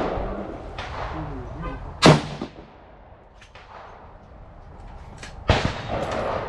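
Two rifle shots about three and a half seconds apart, each a sharp crack with a short echoing tail.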